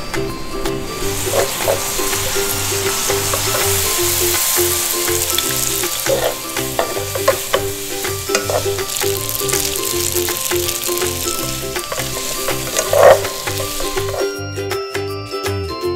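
Spaghetti, cherry tomatoes and sausages sizzling in a frying pan, tossed with wooden tongs that knock against the pan now and then, the loudest knock near the end. The sizzling stops about two seconds before the end, leaving light background music that runs underneath throughout.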